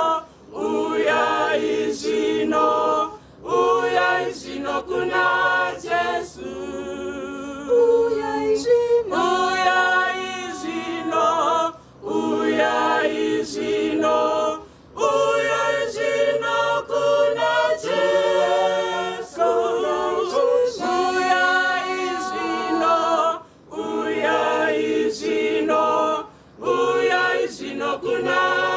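A congregation of men and women singing a hymn together a cappella, with no instruments, in phrases separated by brief pauses every few seconds.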